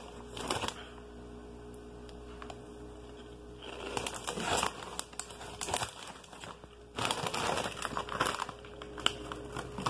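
A plastic Cheetos snack bag crinkling as it is handled and pulled open, in three spells of rustling: about half a second in, around four seconds and around seven to eight seconds.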